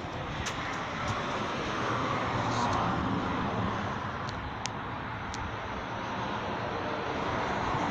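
Road traffic: a steady hiss of passing cars that swells around the middle and fades again.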